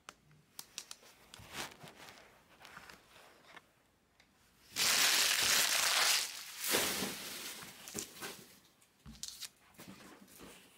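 Wrapped trading-card packs crinkling and clicking as they are handled and stacked, with a loud stretch of crinkling about five seconds in.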